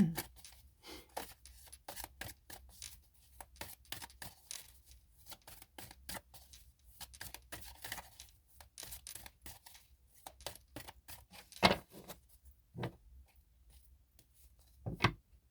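Tarot cards being handled on a table: a long run of quick papery flicks and rustles, with two louder knocks, one a little before twelve seconds in and one near the end.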